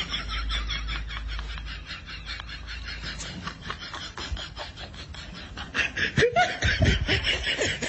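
A person laughing in quick repeated bursts, louder again near the end.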